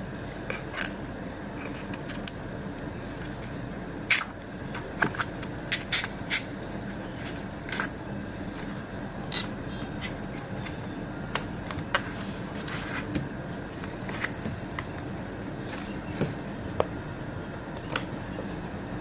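Cardboard pieces and a plastic toy wheel being handled and set down on a table: scattered light taps, knocks and scrapes, most of them between about four and seven seconds in, over a steady background hum.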